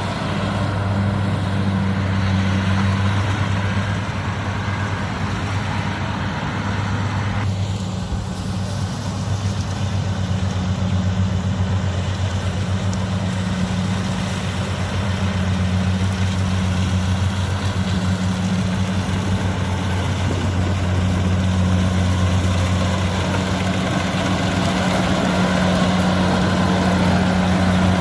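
Engine of a rice-harvesting machine running steadily at constant speed, a low drone throughout. Its sound changes a little about seven and a half seconds in.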